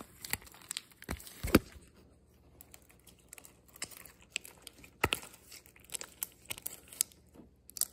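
Blue homemade slime being squeezed and pulled by hand in a plastic bowl: irregular small clicks and crackles, the two loudest about one and a half and five seconds in.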